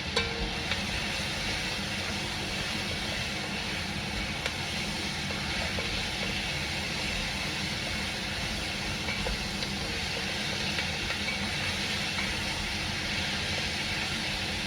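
Carrots and bell peppers sizzling in a Dutch oven: a steady hiss, with a couple of light clicks near the start and one more a few seconds later.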